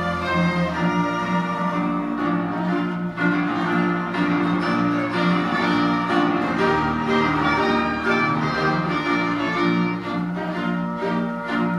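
Live ensemble music: bowed strings, violin and cello, playing long sustained notes over piano.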